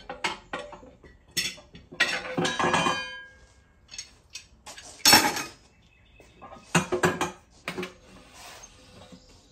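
Steel tire irons and a manual tire changer's mount bar clanking against the wheel and the machine as a tire bead is levered onto the rim. Scattered metal clinks and clanks, with a ringing clatter about two to three seconds in and the loudest clank about five seconds in.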